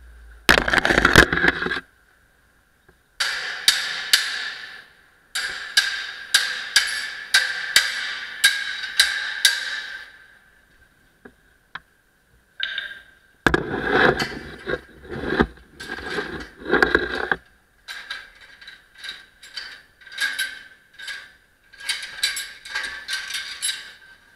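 Metal poles and clamp fittings of a Lindauer Schere sewer-camera rig knocking and clanking as they are handled and fitted together, in bursts of sharp knocks several a second with short pauses between.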